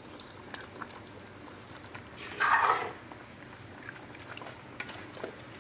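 A pot of chicken stew bubbling on the stove, with scattered small pops and clicks, and a brief louder rush of noise about halfway through.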